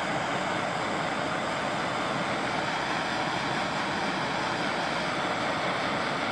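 Handheld gas torch burning with a steady hiss, its flame warming a heat-shrink wire connector so that it shrinks.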